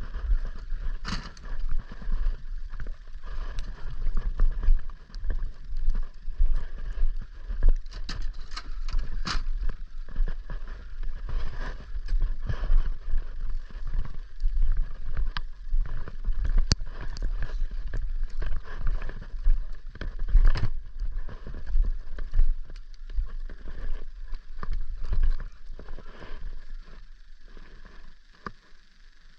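Irregular knocks and clunks over a steady low rumble, growing quieter near the end.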